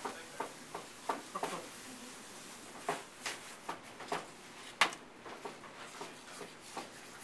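Light kitchen handling noise while salt and pepper are added to a salad: scattered soft clicks and taps, with one sharper knock a little before the five-second mark.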